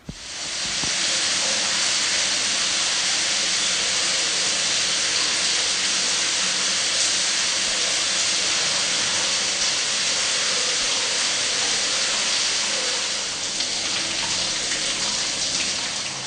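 Overhead shower head running, water spraying steadily down onto the tiled shower: an even, continuous hiss.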